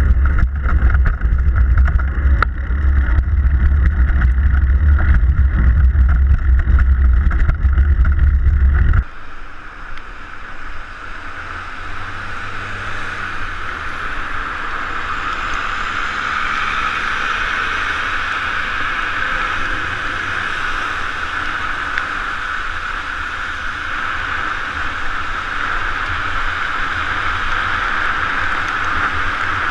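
Heavy low wind rumble and wheel noise from a bicycle ridden on a wet road, picked up by a camera mounted low beside the rear wheel. About nine seconds in it cuts suddenly to a quieter, steady hiss of tyres on wet pavement with city traffic around.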